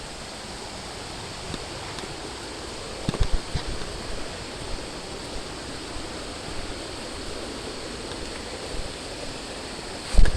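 Steady rush of running water, like a jungle stream or small waterfall, with a few low thumps about three seconds in and again near the end.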